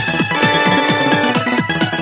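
Upbeat video-game-style background music with a quick, steady beat. A held tone joins about a third of a second in and stops about a second later.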